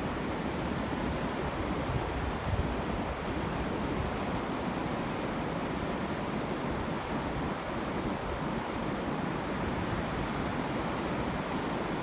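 Shallow surf washing in over wet sand at the water's edge, a steady rushing hiss of waves.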